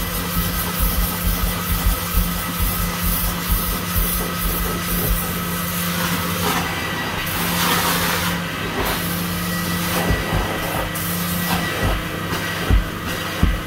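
Carpet extraction machine's vacuum motor running with a steady hiss and whine as its hand-held stair tool is worked over the carpet. A few dull low thumps come through, most of them near the end.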